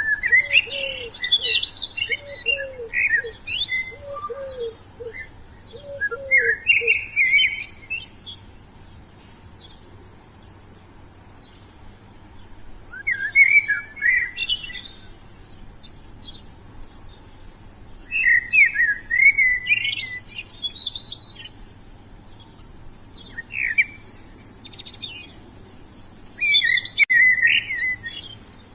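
Songbirds singing in bouts of quick, high chirping phrases, each a second or two long, with pauses of a few seconds between them. In the first several seconds a lower call repeats about five times beneath the song.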